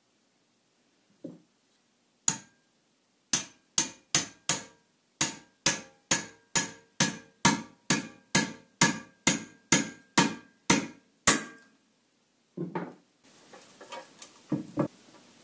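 Hammer blows on a steel drift, driving a freshly turned bushing into the pivot bore of a snowmobile suspension arm: about nineteen sharp, ringing metallic strikes at roughly two a second. After them, a dull thud and some clattering as the arm is lifted and turned.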